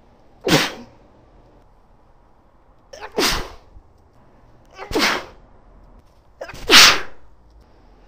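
A woman sneezing into a handkerchief: four sneezes in a row, each a sharp burst a second or two apart, the last the loudest. It is an allergy-type sneezing fit, which she puts down to pollen.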